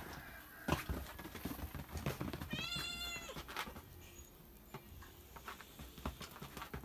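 A cat meows once, a single high call a little before the middle, amid short scuffles and soft thumps of cats wrestling on a bed.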